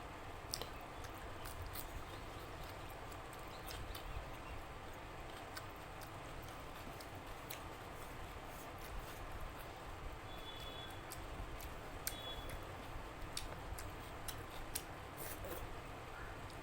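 Close-miked eating sounds: irregular wet clicks of chewing and lip-smacking on mouthfuls of rice and curry, over a steady background hiss.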